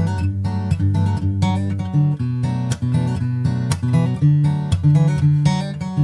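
Background music: a country-folk acoustic guitar arrangement.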